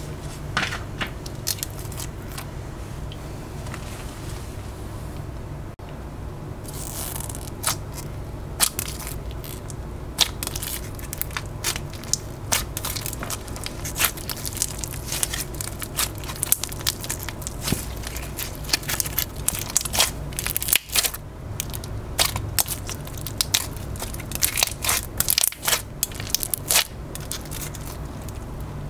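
Crunchy slime being squeezed and pressed by hand, giving many irregular crackles and small pops that come thicker from about a quarter of the way in, over a steady low hum.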